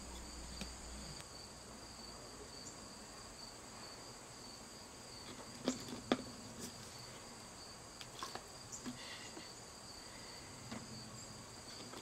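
Faint, steady insect chorus, a high, even trill, with a few soft clicks about halfway through.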